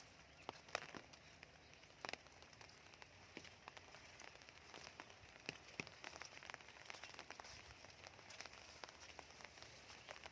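Soft raindrops falling and dripping: scattered, irregular ticks of single drops over a faint hiss.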